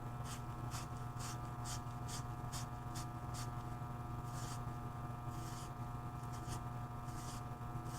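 Copper pipe end being scrubbed clean of oxidation in a pipe-cleaning brush tool: quick scratchy strokes about three a second for the first few seconds, then a few slower, longer scrubs. A steady electrical hum runs underneath.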